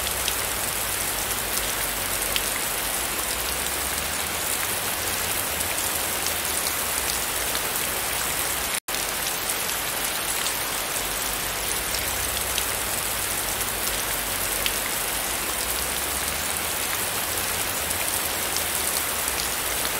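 Heavy rain falling steadily, a dense hiss with individual drops ticking through it. The sound cuts out for an instant about nine seconds in.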